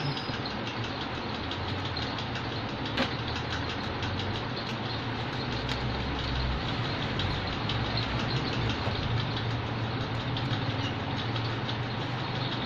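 Steady low hum under an even background noise, with one sharp click about three seconds in.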